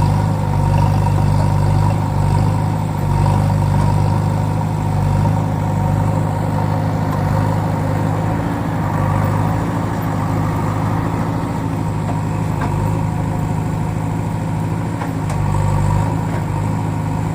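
A JCB backhoe loader's diesel engine running steadily at a low, even speed.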